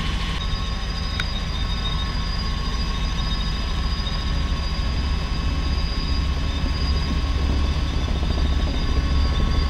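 Helicopter in flight heard from inside the cockpit: a steady deep rotor and engine drone with a fast low pulsing and a thin, steady high whine over it.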